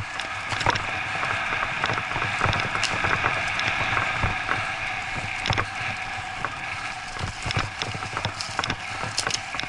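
Bicycle riding fast over a bumpy dirt forest trail: steady tyre and air noise with frequent small rattles and knocks as the bike jolts over the ground.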